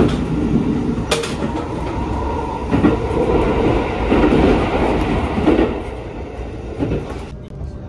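JR Central 373-series electric train running along the track, heard from inside the carriage: a steady rumble of wheels on rail with occasional sharp clicks over rail joints, getting quieter near the end.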